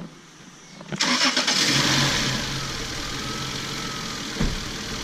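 Isuzu VehiCROSS V6 engine cranked and started about a second in, running up briefly and then settling into a steady idle. A single knock near the end.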